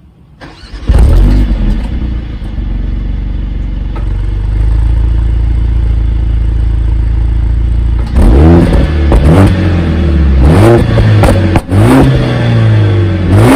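Mercedes-AMG A45 S's Stage 1 tuned 2.0-litre turbocharged four-cylinder starting up: a brief crank, then it catches with a loud flare about a second in and settles into a steady idle. From about eight seconds in, quick throttle blips rise and fall about five times, with a few sharp pops among them.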